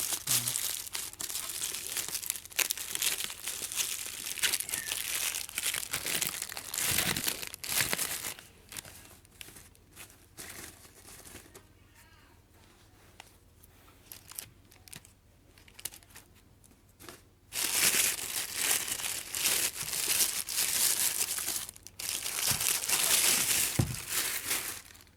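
Plastic packaging crinkling and rustling as speakers are unwrapped from their box, in long bouts of handling. A quieter stretch with a few small clicks and knocks falls in the middle.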